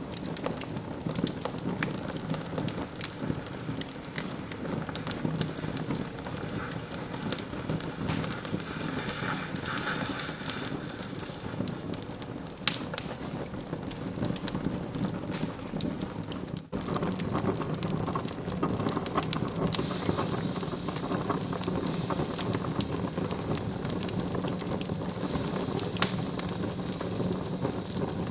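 Wood fire in a fireplace crackling steadily, with dense sharp pops and snaps. A hiss comes up about a third of the way in and again, higher, in the second half.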